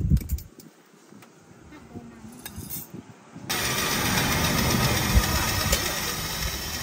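A brief clatter of coffee beans at the start, then about halfway through an electric coffee grinder starts up with a sudden onset and runs steadily, grinding the beans, with a faint high steady tone over the grinding noise.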